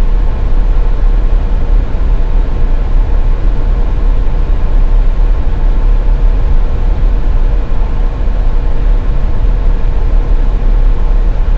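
Car driving on a highway: a steady, loud low rumble of road and engine noise with a faint steady hum over it.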